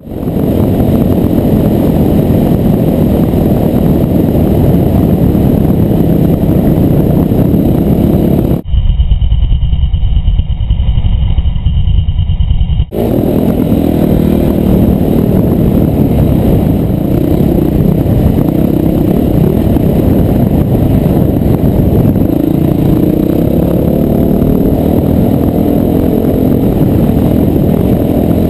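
Dirt bike engine running under load as it is ridden over sand, heard close up from a helmet-mounted camera. For about four seconds, starting a third of the way in, the sound turns muffled and boomy.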